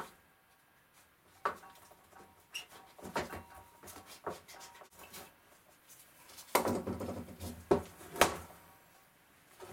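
Handling noise as a craft knife trims a new cotton wick on the brass burner of a miner's safety lamp: scattered soft clicks and knocks, then a busier run of knocking and scraping about six and a half seconds in, with two sharp clicks in quick succession.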